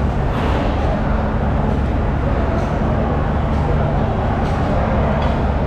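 Steady low mechanical hum of running machinery over a loud, even background din, with some voices and a few faint knocks.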